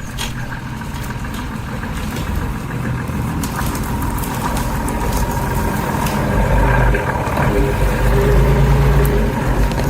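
Mercedes Unimog 416's OM352 six-cylinder diesel engine running steadily, growing louder and deeper about two-thirds of the way through.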